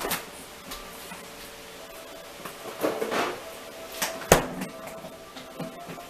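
A few sharp knocks and clicks of handling, the loudest about four seconds in, with a brief scraping rustle around three seconds and a faint steady hum underneath.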